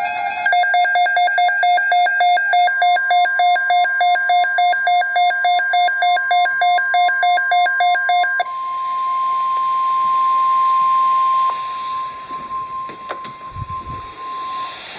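Rapid electronic alert beeping, about three beeps a second, with the steady NOAA Weather Radio 1050 Hz warning alarm tone coming in under it a few seconds in. The beeping stops about halfway, and the alarm tone goes on alone over radio hiss, drops in level, and cuts off near the end.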